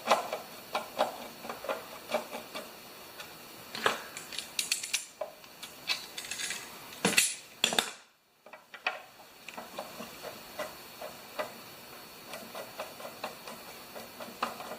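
Hand tools clinking and tapping against metal mower parts while seized bolts are being worked loose: irregular light clicks, with a few louder clanks a little before halfway and again just past halfway, then a brief gap of silence.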